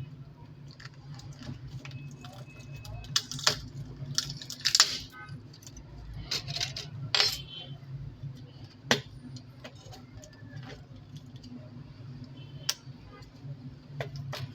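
Small metal tools and phone parts clicking and clinking on a work surface during phone disassembly: irregular sharp taps, several louder clicks scattered through, over a steady low hum.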